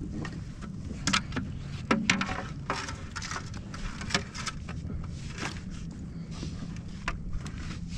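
Handling noise on a kayak as a lingcod and a plastic fish measuring board are handled: a scatter of sharp knocks, clicks and scrapes over a steady low rumble of wind and water.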